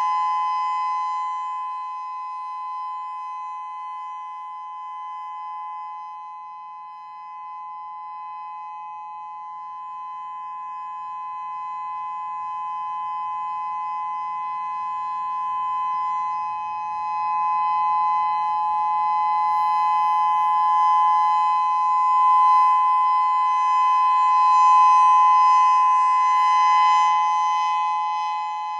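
Whelen WPS-3000-16 electronic outdoor warning siren, 16 speaker drivers, sounding its steady Alert signal: an unbroken two-note tone that holds one pitch. It fades to its quietest about seven seconds in and swells to its loudest a few seconds before the end.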